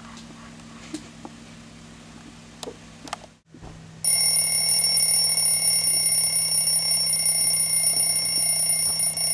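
A loud, steady, high-pitched electronic alarm tone that starts abruptly about four seconds in and holds without a break. Before it there is only a faint room hum with a few light knocks.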